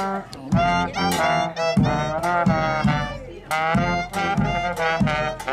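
A small brass band of trombones and trumpets playing a tune together, with a bass drum striking the beat.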